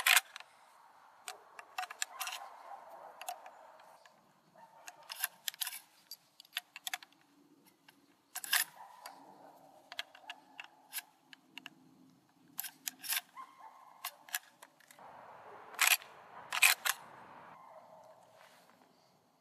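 Metallic clicks and clacks of an Uberti replica Model 1894 Winchester lever-action rifle being handled and loaded, with .38-55 cartridges pushed in through the loading gate. The sharp clicks come in clusters every couple of seconds and are loudest at the start and about three-quarters of the way through.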